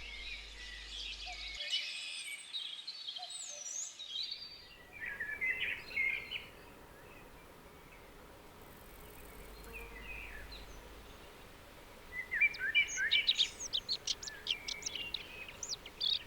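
Small songbirds chirping and calling, with a quick run of high chirps about twelve seconds in, over a faint steady outdoor hiss.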